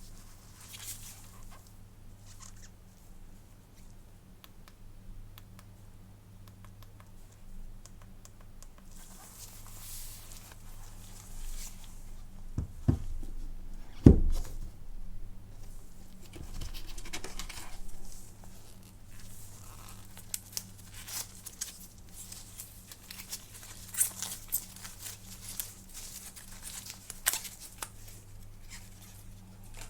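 Close-up handling of a smartphone's paper packaging: rustling, crinkling and tearing with scattered light taps, and a sharp knock about fourteen seconds in. A faint steady electrical hum sits underneath.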